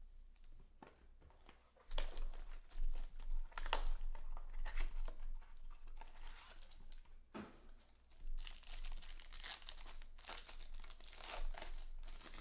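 Clear cellophane shrink wrap crinkling and tearing as it is peeled off a small cardboard trading-card box, then a foil card-pack wrapper crinkling in the hands. The crinkling starts about two seconds in, with one sharp knock partway through.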